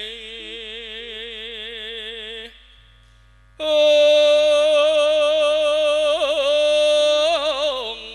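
A man singing a slow, drawn-out Javanese melody through a microphone over sustained electronic keyboard notes. The singing has warbling held notes, breaks off about two and a half seconds in, and comes back louder about a second later on a long held note. That note wavers in ornamented turns and slides down near the end.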